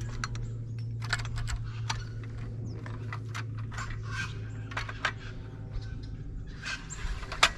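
Parts of a caravan awning anti-flap kit being handled and fitted together: a run of small irregular clicks, taps and rattles, with a sharper click near the end. A steady low hum runs underneath.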